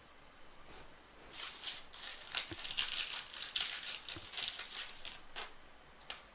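Trading cards being handled and shuffled by hand: about four seconds of crinkly rustling and light clicks, then one sharp click near the end.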